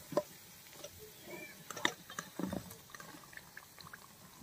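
Battered fritters frying in hot oil in a kadai: faint scattered pops and crackles from the oil, with a few sharper clicks of a metal slotted skimmer against the pan as the fritters are lifted out.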